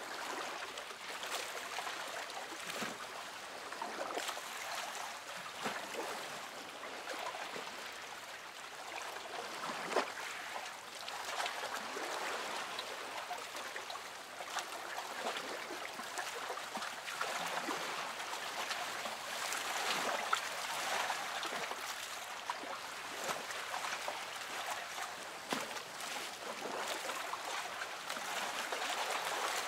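Shallow seawater lapping and sloshing in uneven swells, with small splashes.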